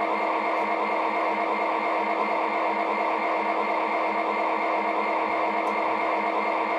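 O scale model diesel locomotive running: a steady hum with a low throb that pulses about four times a second.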